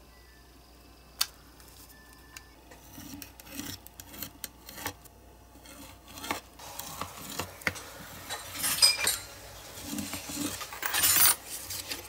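Utility knife scoring and cutting card stock along a steel ruler on a cutting mat: scattered light clicks and scrapes, getting busier in the second half with louder scraping rustles about three quarters of the way through and again near the end.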